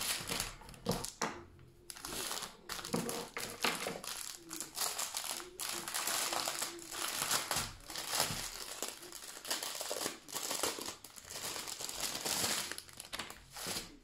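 Clear plastic bag crinkling and rustling in the hands as it is pulled open and its small packets of diamond-painting drills are taken out, in short irregular rustles.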